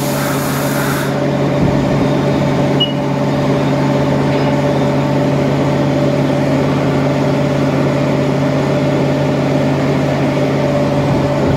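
Haas TM1 toolroom mill running with a steady machine hum: a low drone with a few steady higher tones, and a short hiss in the first second.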